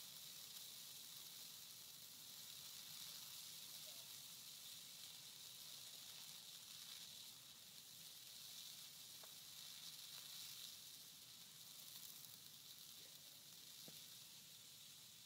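Faint, steady hiss with a few sparse crackles from a large fire pit blaze of burning Christmas trees.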